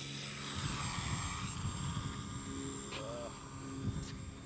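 Electric motor and propeller of a HobbyKing Boeing P-26 Peashooter RC scale model going by close along the runway, its whine falling in pitch as it passes, over a low rumble.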